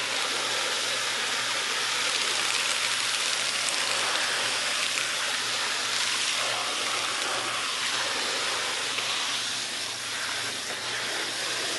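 Garden hose spray nozzle spraying water into a plastic tub of soaking meat: a steady hissing splash as the meat is rinsed.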